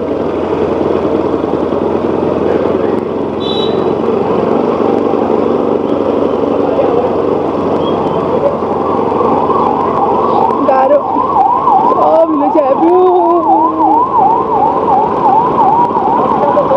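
Motorcycle engine and tyre noise on a wet road while riding slowly. About nine seconds in, a siren-like electronic yelp starts, sweeping up and down two or three times a second until the end.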